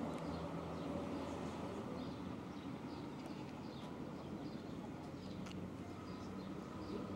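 Small birds chirping faintly and repeatedly over a steady low background hum.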